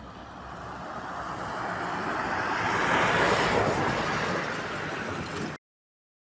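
A vehicle passing on the road: tyre and engine noise swelling for about three seconds, peaking just past the middle, then easing before it cuts off suddenly.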